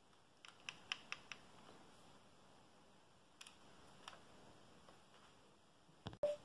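Light plastic clicks from a LEGO-brick model rifle being handled: a quick run of about five clicks about half a second in, then two single clicks later. A short, louder pop comes near the end as the sound briefly cuts out.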